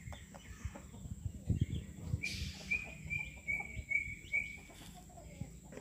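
A bird chirping a quick run of about six short, high notes from about two seconds in. Beneath it are low knocks and rustling from the paper-and-cloth barong mask being handled.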